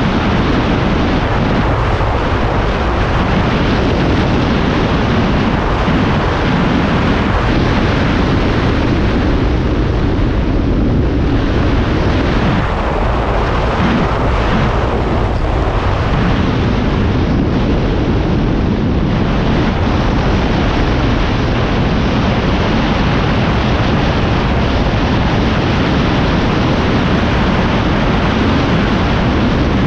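Loud, steady wind rush buffeting the skier's camera microphone at racing speed, mixed with the hiss and scrape of skis running over groomed snow.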